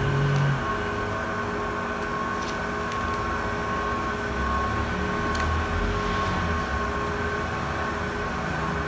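Steady background hum with a few constant whining tones and a low rumble, broken by a few faint small clicks.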